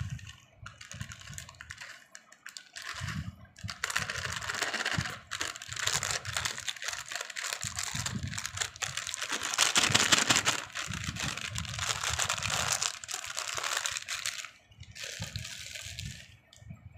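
A plastic Kurkure snack packet crinkling and rustling as it is squeezed and shaken over a steel bowl, with the snack pieces dropping into the bowl. It comes in short bursts at first, then runs steadily for about ten seconds, loudest around the middle.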